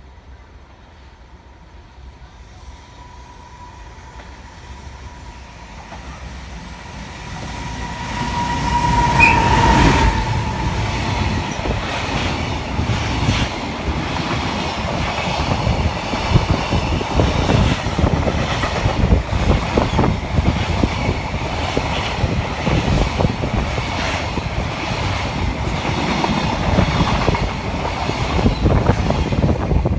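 Freight train hauled by an EF510 electric locomotive approaching and passing at speed. A rising rumble with a steady high ring grows for about ten seconds, then the wagons' wheels clatter rapidly over the rail joints.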